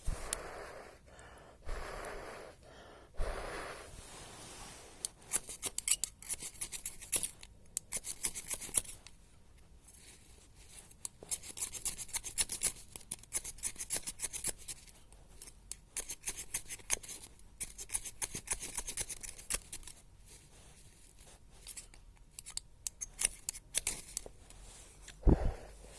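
Fire striker being scraped hard along a ferrocerium rod in clusters of quick, rasping strokes to throw sparks onto paper tinder, after a few seconds of softer paper rustling at the start. A single thump near the end.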